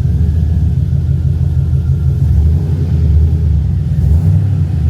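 Freshly swapped LS V8 engine idling on its first start, a loud steady low rumble through its new true dual stainless exhaust.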